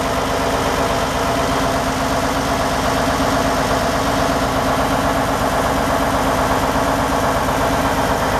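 The fishing boat's inboard diesel main engine idling steadily, heard up close in its engine room.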